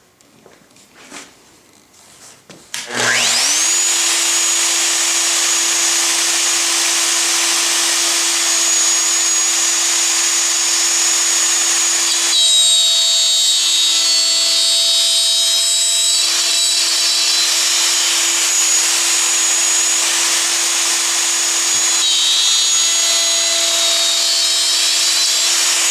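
Festool OF 2000 plunge router: a few clicks, then the motor switched on about three seconds in, its whine rising quickly to full speed and running steadily. The bit plunges and cuts into the wood of a blind dado for a drawer bottom, adding a harsher cutting sound for a few seconds near the middle and again near the end.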